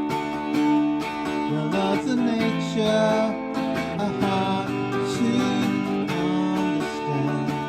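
Acoustic guitar music, strummed and plucked, with a melody moving over steady chords.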